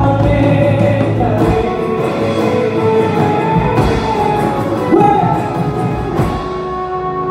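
Live band music: a man singing over acoustic guitar, hand drums and drum kit. Notes are held steady near the end.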